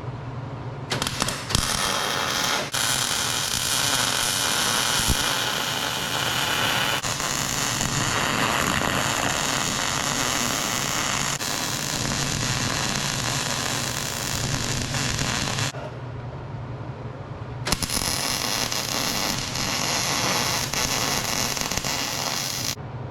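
Electric arc welding crackling in long runs as a stacked billet of hardened and mild steel plates is welded together for Damascus. It starts about a second in, stops for a couple of seconds past the middle, starts again and stops just before the end.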